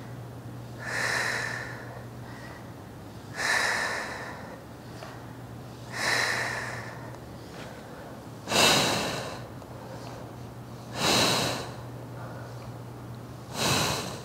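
A woman breathing hard from exertion: six forceful, noisy exhalations, about one every two and a half seconds, in time with the repetitions of a banded leg-spreader exercise.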